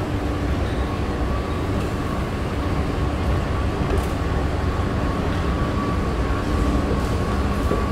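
Steady low mechanical rumble with a faint, unchanging high whine, the noise of heavy vehicles or a metro train running.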